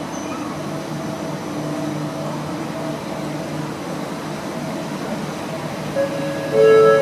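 Steady mechanical hum of a metro station's lift and ventilation machinery, with no speech. About six seconds in, a loud electronic chime sounds: held tones, with a second, louder tone entering just after the first.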